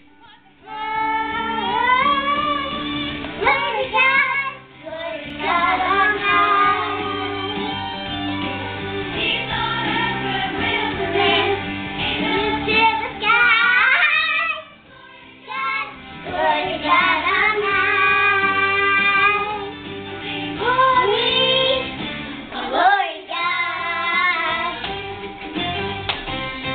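Two young girls singing a Christmas song, loud and half screamed, with high swoops in pitch, over music playing underneath.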